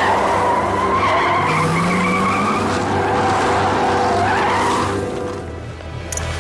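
BMW E60 sedan's tyres squealing as it brakes hard and skids to a stop. The squeal lasts about five seconds, wavering in pitch, then fades out.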